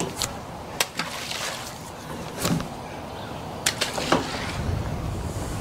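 Water lapping gently against a wooden dock and a moored boat, with a few short clicks and knocks, and a soft splash about two and a half seconds in as a thrown ball of pond-bacteria formula lands in the pond.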